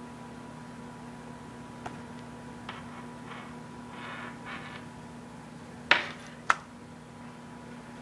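Handling noise from white plastic USB charging cables and their connectors: soft rustling, then two sharp clicks about half a second apart, over a steady electrical hum.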